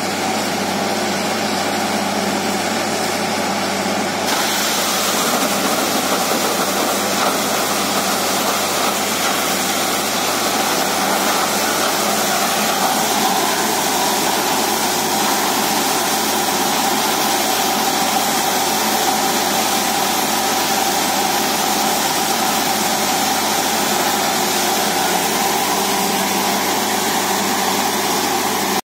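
Truck-mounted borewell drilling rig running steadily. About four seconds in, a loud steady hiss joins as air and water blast out of the bore casing, carrying up mud and slurry from the borehole.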